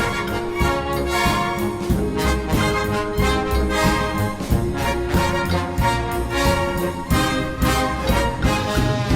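Orchestral music with brass to the fore, playing at a steady beat.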